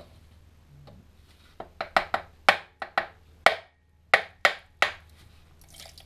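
A series of about ten sharp knocks, irregularly spaced over about three seconds, as a tool is struck against a stuck fitting on a Land Rover TD5 diesel engine to split it apart.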